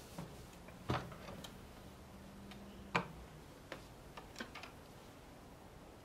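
Metal clicks and clacks from a reloading press as a bullet is seated in a pistol case by the seating die: a sharp clack about a second in, a louder one about three seconds in, then a few lighter ticks.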